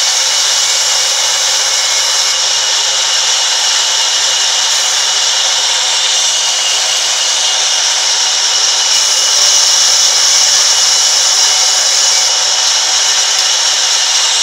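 Large sawmill band saw running steadily with a high whine while a long wooden plank is fed through its blade and ripped lengthwise. The noise grows a little louder about two thirds of the way through.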